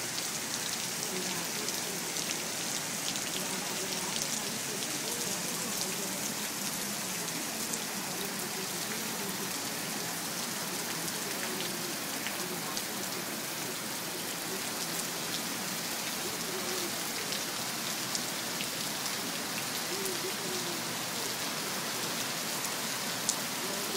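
Steady rain pouring down onto a flooded street and pavement, a constant even hiss with scattered sharp drip and splash ticks.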